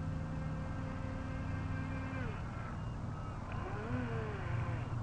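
Feilun FT007 RC boat's electric motor whining steadily, then winding down a little over two seconds in. Near four seconds in it briefly revs up and back down.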